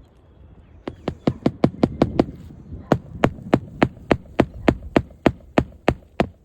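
Hammer blows driving roofing nails into a replacement asphalt shingle: a quick run of about eight strikes, then after a short pause a steady series of about eleven strikes, roughly three a second.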